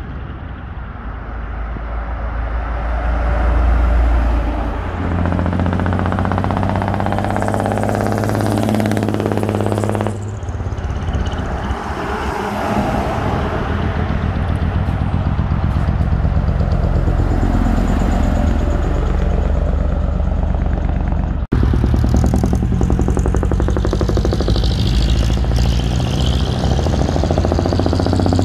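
Diesel trucks with manifold-split (mani-wari) exhausts driving past one after another, a deep exhaust rumble that swells as each truck nears and drops away as it passes. The sound changes abruptly twice.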